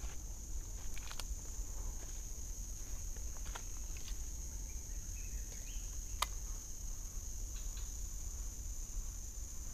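Steady high-pitched insect chorus, with a handful of sharp clicks and snaps over it, the loudest about six seconds in, and a low rumble on the microphone.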